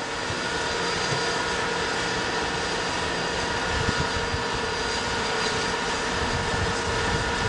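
M1 Abrams tanks' gas-turbine engines idling: a steady, jet-like whine of several held tones over constant engine noise.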